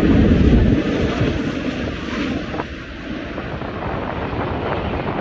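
Airbus A380 jet engines rumbling, loudest at the start and easing over the first few seconds, with strong wind buffeting the microphone.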